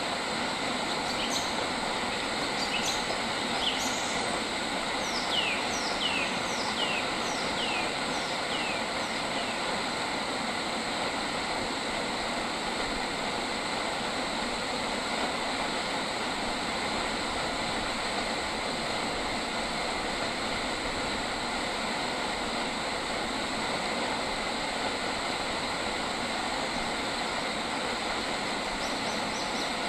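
Steady, dense outdoor nature ambience, a constant hum and hiss. A bird calls a few short notes in the first few seconds, then a run of about six quick falling notes, after which only the steady background is left.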